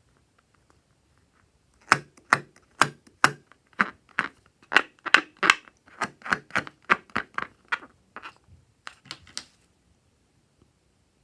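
A run of about twenty sharp clicks, two to three a second, starting about two seconds in and growing weaker near the end.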